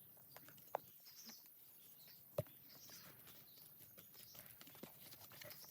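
Near silence: faint outdoor background hiss with a few soft, short clicks, the clearest about a second in and again near the middle.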